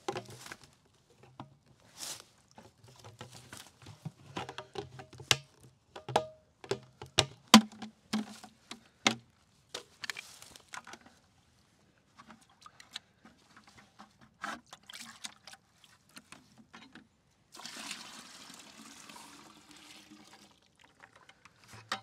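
Plastic knocks and clicks as the lid of a five-gallon plastic sap bucket is worked loose with a lid tool. Near the end, maple sap pours from the bucket for about three seconds.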